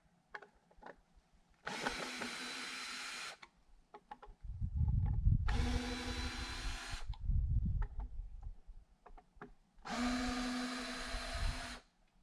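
Power drill running in three short bursts, each about a second and a half long and steady in pitch. Low thuds and clicks come between the bursts.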